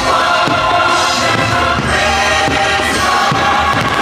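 Choir singing over the music of the Magic Kingdom castle Christmas fireworks show, with a few low thumps under it.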